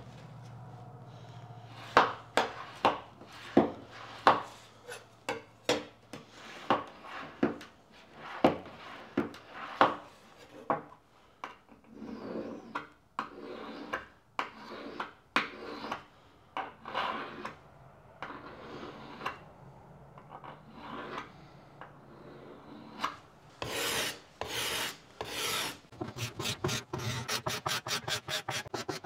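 Steel card scraper drawn over a wooden tool handle in repeated scraping strokes, taking off fine shavings. The strokes are short and sharp at first, then longer, and near the end come quick and even, about three a second.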